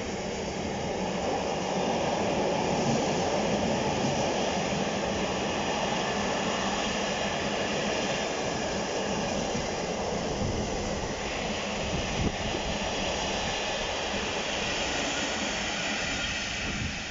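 Freight train passing at close range: hopper wagons and then empty flat wagons rolling by, a steady rumble of wheels on rail with a single sharp knock about twelve seconds in. A GBRf Class 66 diesel locomotive at the rear of the train goes by near the end.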